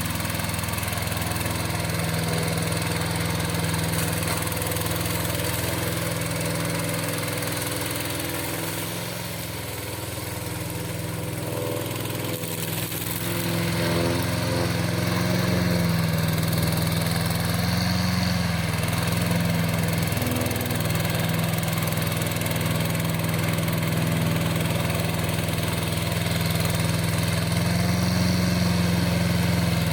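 Engine of a crawler remote-control slope mower running steadily, with its engine note dipping slightly about ten seconds in and rising again a few seconds later.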